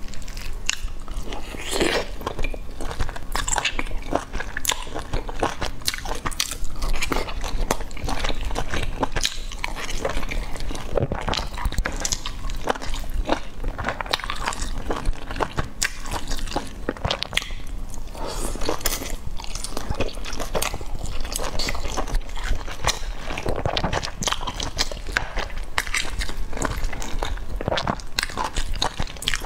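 Close-miked chewing and biting of soft boiled dumplings: a continuous stream of wet mouth smacks and clicks as mouthful after mouthful is eaten.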